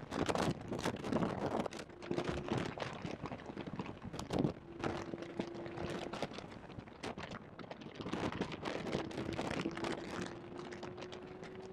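In-car recording at track speed in a Porsche 991.2 GT3, dominated by a poorly placed microphone's irregular knocking, crackling and wind buffeting. The car's naturally aspirated flat-six engine note comes through faintly at times and rises a little near the end.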